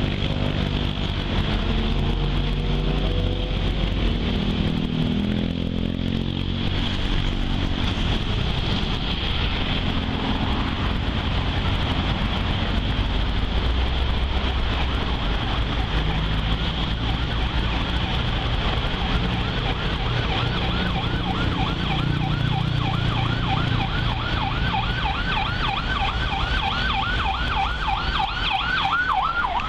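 Outdoor road traffic: vehicle engines pass, their pitch sliding in the first few seconds, over a steady high drone. About two-thirds of the way through a fast, repeating rising warble starts, several strokes a second, and runs on.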